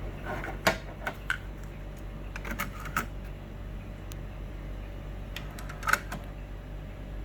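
Mechanism of a Teac V-7000 cassette deck clicking and clunking as it operates: a few sharp clicks spread over several seconds, over a steady low hum.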